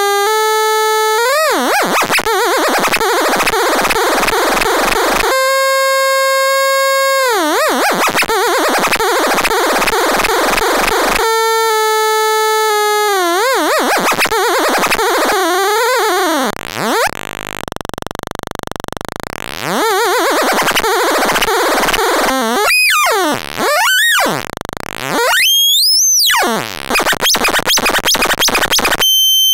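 VCV Rack VCO-1 software oscillator frequency-modulated by two LFO-1 low-frequency oscillators: a buzzy synth tone that warbles rapidly in pitch, now and then settling on a held note. In the last third it sweeps up and down in wide pitch swoops.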